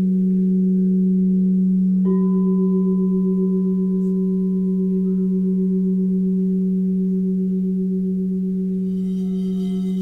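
Singing bowls ringing: a low bowl hums steadily throughout, a higher bowl is struck about two seconds in and slowly fades, and near the end another bowl begins to ring with a bright, bell-like shimmer of high overtones.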